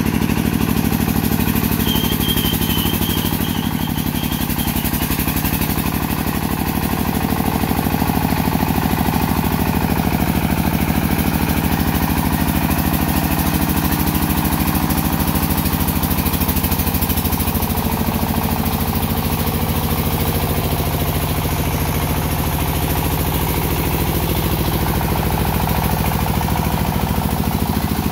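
Single-cylinder diesel engine of a công nông two-wheel tractor running steadily with an even, rapid chugging as it hauls a loaded trailer through deep mud.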